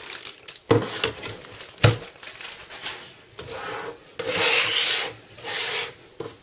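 Clear plastic wrapping rustling and rubbing as a metal drive cage is pulled out of it, with two sharp knocks about one and two seconds in.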